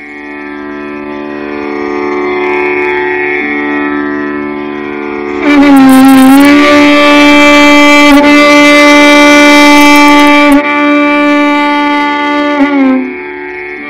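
Violin playing the lehra, the melodic accompaniment for a tabla solo: long held notes joined by slides. It fades in and becomes much louder about five and a half seconds in.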